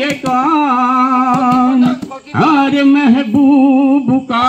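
A man singing into a microphone, holding long notes in two phrases with a short break about halfway through.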